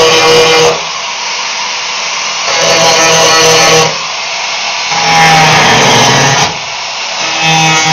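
Grinder working the welds in a car's trunk metal in repeated bursts of about a second and a half, with short pauses between them. Guitar music plays underneath.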